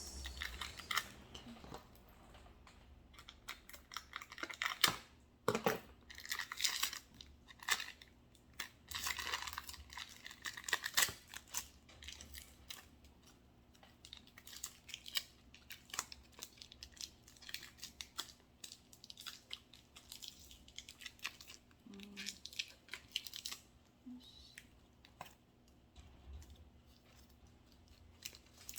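Packaging being handled and torn open: crinkling and tearing in short bursts, with scattered clicks and taps, busiest in the first half.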